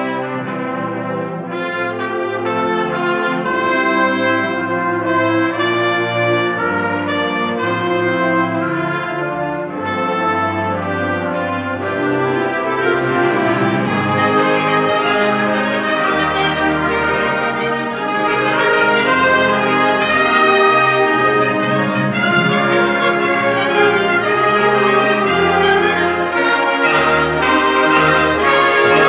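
A community concert band playing a piece live, brass to the fore over the woodwinds, with sustained chords and moving lines; it swells louder and brighter about halfway through.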